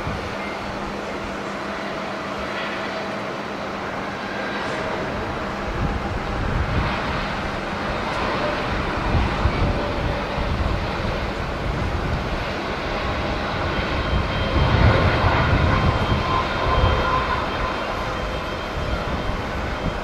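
Japan Airlines Boeing 787's jet engines running at takeoff power during its takeoff roll and liftoff: a steady jet noise with a faint whine, growing louder in the later part. Gusts of wind buffet the microphone with low rumbles, strongest about three quarters of the way through.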